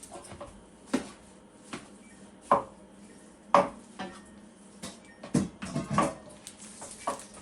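Metal kitchenware or equipment being handled: scattered, irregular clinks and knocks, with a quick run of them near the end.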